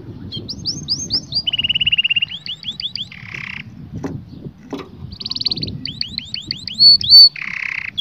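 White domestic canary singing: runs of quick repeated upslurred notes, a fast even trill, and two short harsh buzzy rolls, one midway and one near the end.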